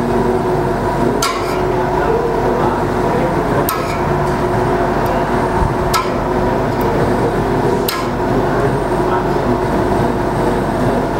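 Fused clapton coil-winding machine running with a steady hum, with four sharp clicks a couple of seconds apart.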